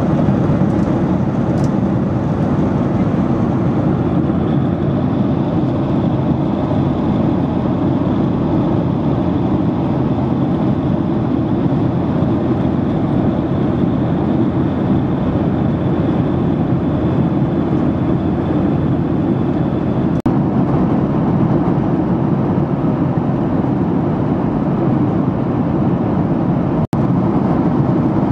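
Steady roar of a Boeing 737 airliner in flight, heard inside the passenger cabin: engine and airflow noise, with a faint high whine through much of it. The sound cuts out very briefly twice near the end.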